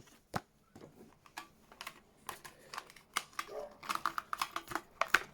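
Irregular clicks, taps and rustling from a new wallet and its packaging being handled while it is unpacked, with a quick run of clicks around four seconds in.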